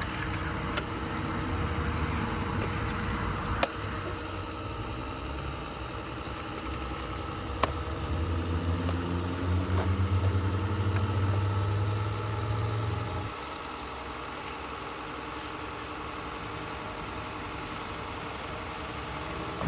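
Tractor engine running steadily. It gets louder and deeper from about eight seconds in, then drops back to a lower level about five seconds later. Two sharp clicks sound early in the run.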